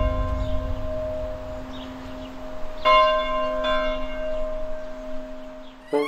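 Bell tones from a title sting ringing and slowly dying away, struck again about three seconds in, over a low steady drone. A rising sweep starts at the very end.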